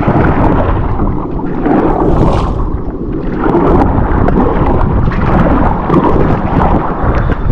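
Wind buffeting the microphone with a loud low rumble, with water splashing and lapping against a kayak's hull and scattered small knocks.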